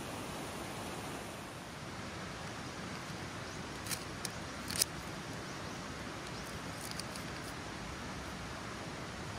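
Small wood fire burning in a folding metal stove, a steady hiss with a few sharp crackles about four seconds in and a few fainter ones around seven seconds.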